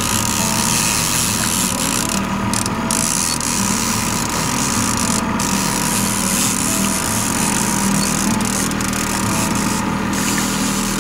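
Outboard motor running steadily at a constant low speed, with an even hiss of water and air over it.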